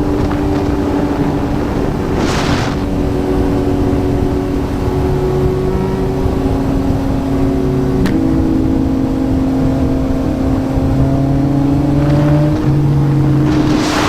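Yamaha MT-09's inline-three engine through a Yoshimura R11 exhaust, running at a steady road pace with its pitch holding nearly level and shifting slightly about eight seconds in. Two brief whooshes of noise, about two seconds in and near the end.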